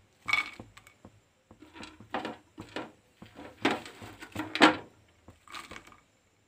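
Cut makhana (fox nuts) being dropped in handfuls into a metal pan of hot ghee, rattling and clattering on the pan in several irregular bursts, the loudest about two thirds of the way through.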